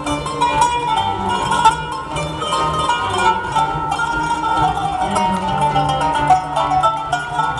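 Arabic music ensemble playing a sama'i in maqam Hijaz. A qanun's plucked note runs stand out over violins and a lower bass line.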